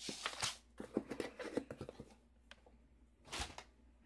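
Rustling and handling noise of packaging as an item is pulled out of a box, with small clicks and scrapes. It is busy for the first two seconds, then there is a single louder rustle about three and a half seconds in.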